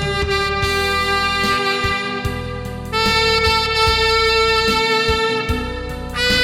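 Amateur tenor saxophone playing a slow gospel melody in long held notes, moving to a new, louder note about three seconds in and again near the end, over recorded accompaniment with bass and drums.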